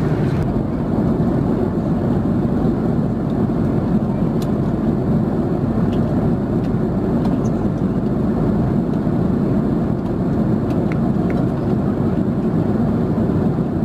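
Steady cabin noise of an Airbus A330-300 in flight: an even, low rush of airflow and engines, with a few faint clicks.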